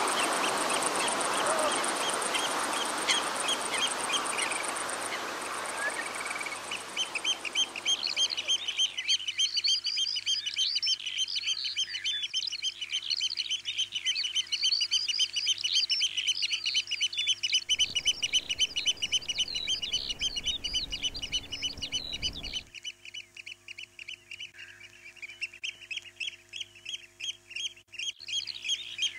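A steady rushing noise that fades after about eight seconds, giving way to many birds chirping rapidly and without a break. A low rumble comes in for a few seconds past the middle.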